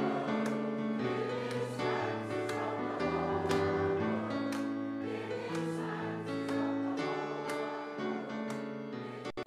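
Music: a sung song over instrumental accompaniment, its chords changing about once a second.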